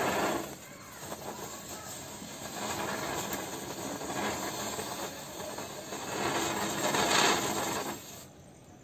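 Homemade ground chakkar (ground spinner firework) burning with a hissing spray of sparks that swells and eases in waves, loudest about seven seconds in, then dies away abruptly as it burns out.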